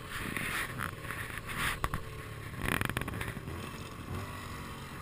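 Snowmobile engines running at idle, a steady low rumble. Several short bursts of hiss are laid over it, and there is a sharp click near two seconds in.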